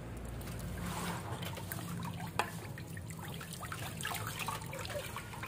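Water poured by hand trickling and splashing over a puppy standing in a metal basin of water, with many small splashes and one sharp click about two and a half seconds in.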